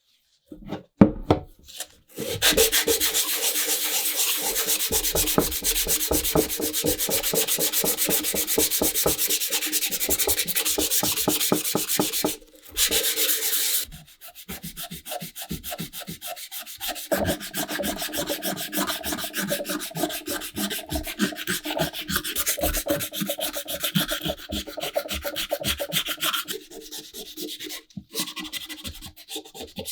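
Hand sanding of the lantern's body: sandpaper rubbing in rapid back-and-forth strokes over a faint ringing from the hollow body. The strokes break off about 12 seconds in, come back briefly, then carry on quieter and lighter.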